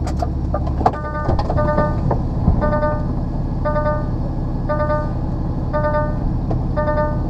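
Lorry reversing alarm beeping about once a second, starting after a clunk about a second in, over the low running of the truck's diesel engine.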